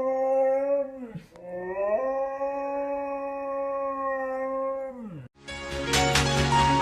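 Siberian husky howling: two long, steady howls, each dropping in pitch as it ends. Music starts near the end.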